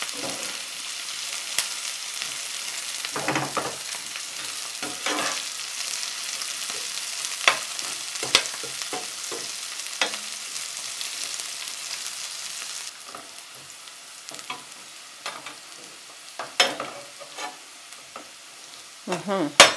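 Onions and green peppers sizzling in oil in a nonstick frying pan, stirred with a perforated metal skimmer that scrapes and taps against the pan now and then. The sizzle drops abruptly about thirteen seconds in, and the utensil clicks go on.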